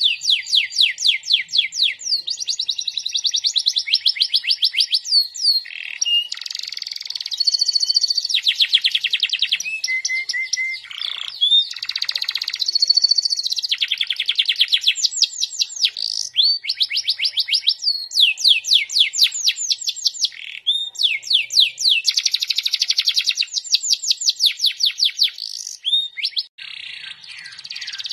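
Domestic canary singing a long, loud, continuous song of rapid trills. Each phrase is a fast run of repeated notes, and the song switches from one trill to the next every second or two, with a brief pause near the end.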